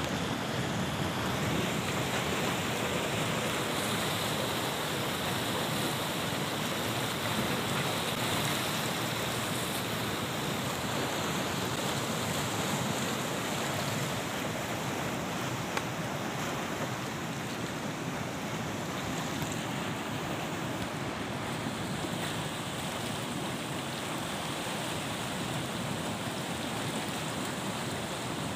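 Steady rush of a muddy river running fast over shallow rapids, with whitewater churning.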